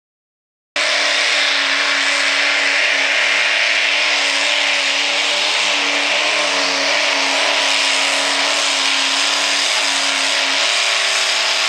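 Open-rail mini pulling tractor's engine running at steady high revs while dragging the weight sled, with dirt and track noise over it. The sound starts abruptly after a moment of silence less than a second in.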